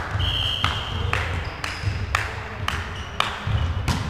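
Volleyballs being struck and bouncing on a sports-hall floor: a series of sharp, echoing smacks about every half second, with a short high squeak early in the sequence.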